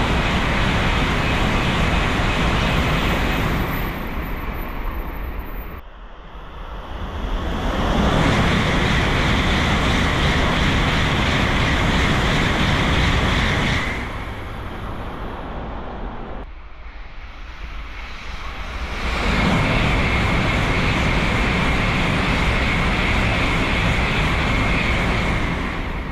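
Tokaido Shinkansen trains passing through the station at high speed: a loud rushing noise of air and wheels on rail. It comes in three stretches with quieter lulls between, and the second and third carry a steady high whine.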